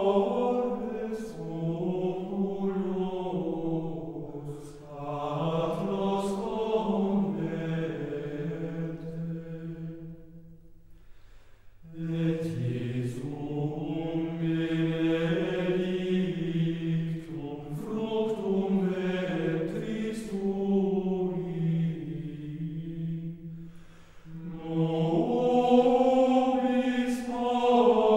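Gregorian chant: voices singing a single unaccompanied melody in long, flowing phrases, with a break about ten seconds in and shorter breaths between the other phrases.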